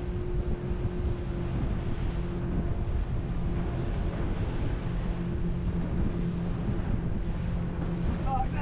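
A pontoon boat running at speed under outboard power: a steady low engine hum under heavy wind buffeting on the microphone and water splashing against the hull.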